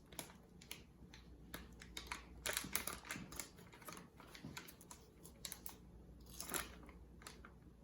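Faint, irregular light taps and clicks of kitchen things being handled over a mixing bowl as ingredients are tipped in for pancake batter, busiest a few seconds in and again near the end.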